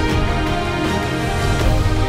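Background music with sustained chords over a steady bass.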